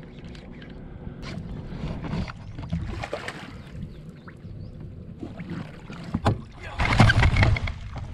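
A hooked threadfin salmon splashing at the surface beside the boat as it is scooped into a landing net, with bursts of splashing and the loudest thrashing near the end as the fish is lifted in the net.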